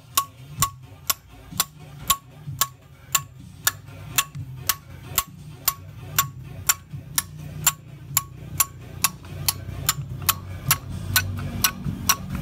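Hammer tapping a steel punch to drive the piston pin out of a Hino EH700 piston, the step that frees the connecting rod from the piston. Steady metallic taps about twice a second, each with a short ring.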